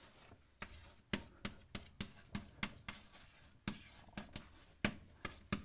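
Chalk writing on a blackboard: a quiet string of sharp taps and short scratches as the strokes go down, two or three a second.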